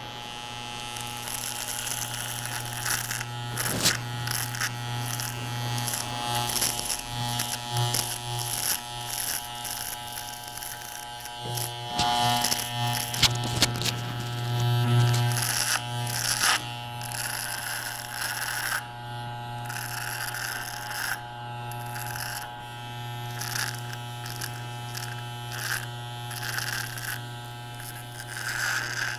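Electric hair trimmer running with a steady buzz as it is drawn over a man's beard stubble, its blades rasping through the whiskers in short scratchy strokes.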